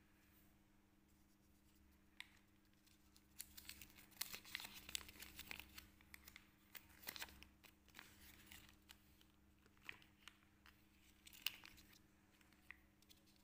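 Faint crinkling and tearing of Kinder Joy packaging: the toy's thin plastic wrapper being handled and torn open, densest about a third of the way in, then a few scattered crackles as the cream tray is opened.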